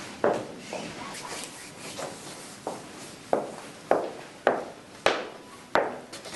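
Footsteps: a person walking across a hard floor, with sharp, evenly paced steps about every half second to two-thirds of a second.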